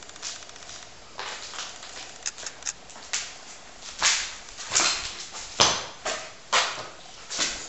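Footsteps crunching over burnt debris and rubble, about one step a second, louder in the second half.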